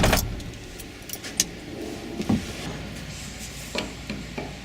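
A few scattered light clicks and knocks of tools and metal parts being handled while work starts on the truck's fuel filter housing, with a steady running sound cutting off right at the start.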